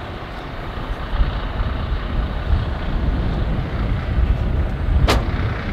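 Wind buffeting the microphone, a low fluctuating rumble, with one sharp click about five seconds in.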